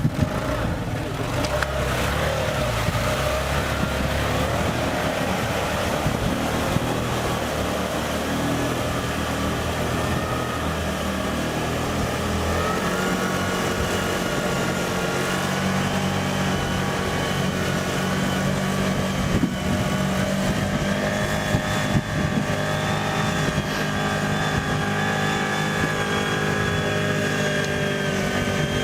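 A heavy vehicle's engine running steadily under load. Its note steps up about halfway through, and there are a few short knocks.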